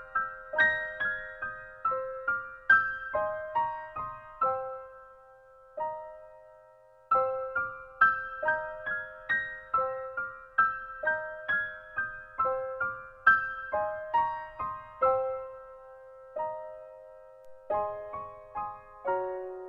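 Background piano music: a slow melody of single struck notes that each ring and die away. The music fades out about four or five seconds in and starts again a couple of seconds later.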